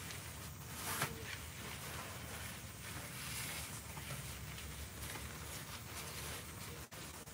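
Phone-microphone handling noise and jacket fabric rustling as the phone is moved, over a low steady rumble. There is one sharp click about a second in, and the sound drops out briefly near the end.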